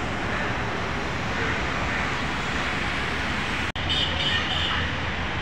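Steady outdoor background noise, a dense traffic-like rumble and hubbub with no single clear source. It cuts out for an instant about two-thirds of the way through.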